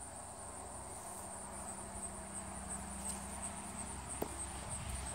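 Crickets chirring, a steady high-pitched pulsing trill, with a faint low hum underneath and a single light tick about four seconds in.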